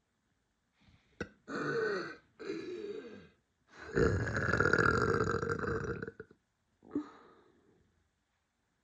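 A person burping from a bloated stomach: two short burps, then a long, loud burp of about two and a half seconds, and a brief fainter sound near the end.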